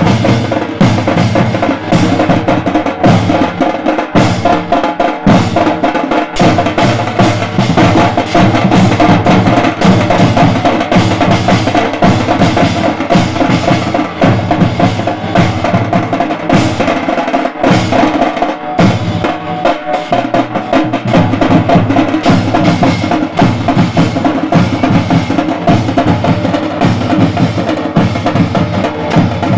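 Hired street band playing loud, fast, continuous drumming, with bass drum and snare beats, and a pitched tune above the drums.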